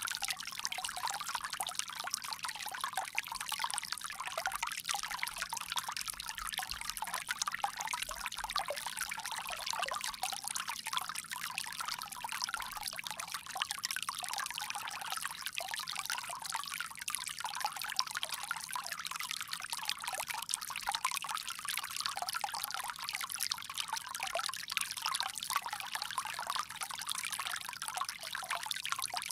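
Water pouring in a steady stream from a bamboo spout, a continuous splashing trickle.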